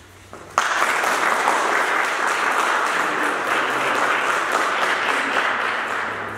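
Applause that starts suddenly about half a second in, holds steady, and eases slightly near the end.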